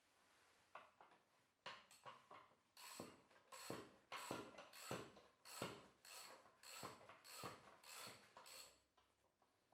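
Rhythmic rubbing or scraping strokes, about one and a half per second, faint at first and settling into an even rhythm about three seconds in.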